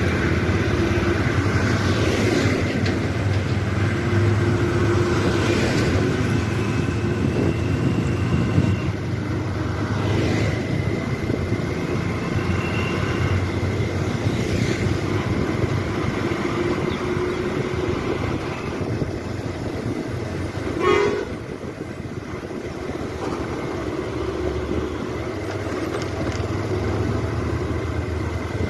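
Steady engine and road noise heard from a vehicle following a passenger bus on a rough road, with a vehicle horn sounding briefly about 21 seconds in.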